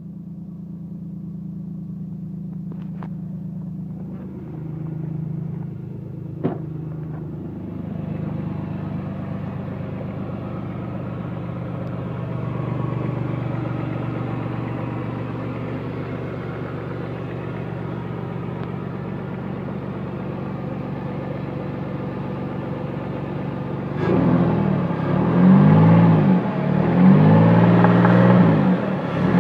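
Car engine idling steadily, with a couple of sharp clicks in the first several seconds, then revved up and let fall back several times near the end. The engine is being recorded for an engine knock.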